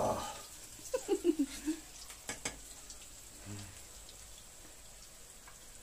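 Tempeh frying in a shallow layer of oil in a frying pan: a faint, steady sizzle and crackle. A sharp click sounds about two and a half seconds in.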